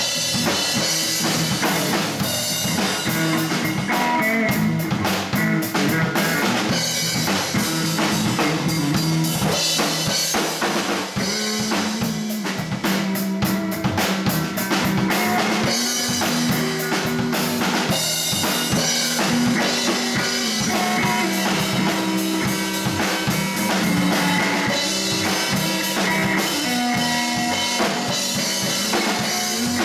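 Live blues band playing through an amplified electric guitar, an electric bass guitar and a drum kit, with a steady drum beat and a walking bass line.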